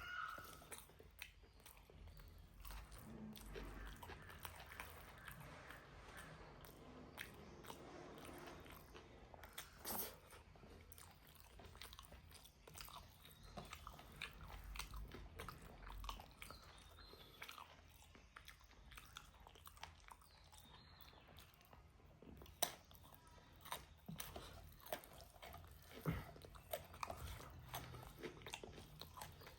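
A person chewing and biting pork close to the microphone: a run of wet mouth noises and crunching bites, with sharper, louder crunches in the later part.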